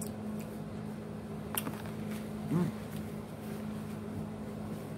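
A woman eating shrimp: a light click about a second and a half in, then a short closed-mouth "mm" murmur as she chews, over a steady low hum in the room.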